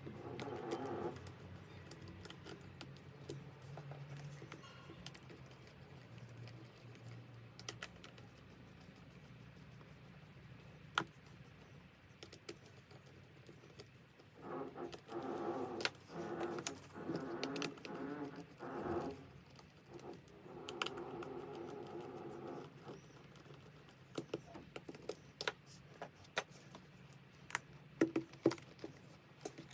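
Scattered light clicks and taps of small hard parts being handled, typical of working on a handheld scan tool's casing during a battery swap; the clicks come more often near the end. A faint pitched sound comes and goes in the middle.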